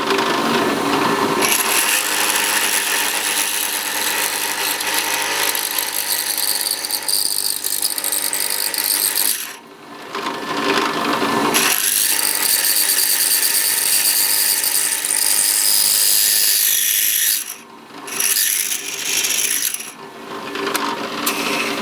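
Electric drill running as it bores out a small aluminum ferrule, a steady mechanical whir with cutting noise. It stops briefly about ten seconds in and again a few seconds before the end, then restarts.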